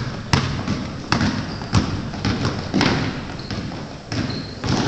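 Basketball dribbled hard on a hardwood gym floor: irregular bounces echoing through the gym, with a short high sneaker squeak about four seconds in.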